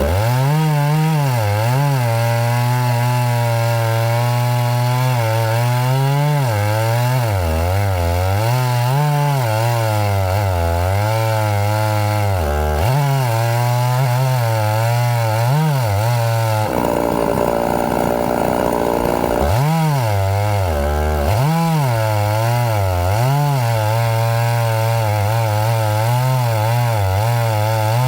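Chainsaw running and cutting, its engine pitch dipping and rising over and over as the chain loads up in the wood and frees again. For about three seconds past the middle the sound turns rougher and noisier.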